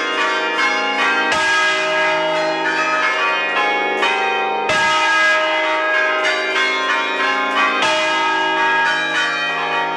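Wheel-hung church bells of an Ecat-cast ring in E-flat major swinging full circle in Roman style, heard up close in the belfry. The clappers strike in quick, overlapping succession, so the bells' tones pile up into one continuous peal, with a few heavier strokes standing out.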